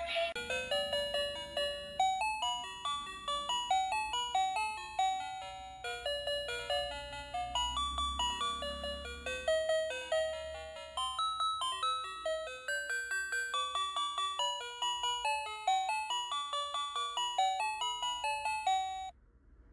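Electronic toy music chip playing a quick melody of single bell-like chime notes, with a short break partway through, cutting off abruptly near the end.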